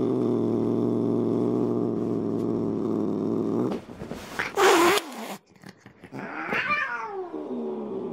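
Upset cat growling in a long, low, steady drone for about four seconds, then a short sharp hiss and a drawn-out yowl that falls in pitch. These are the defensive noises of a freshly bathed cat resisting being caught and wrapped in a blanket.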